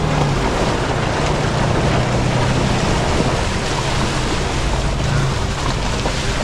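Pickup truck driving slowly through shallow running water over a rocky stream bed, its tyres splashing, with a low engine hum that comes and goes and wind on the microphone.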